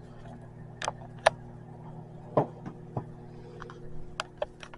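A handful of short, sharp clicks and taps at irregular intervals, the loudest about a second in, over a steady low electrical hum.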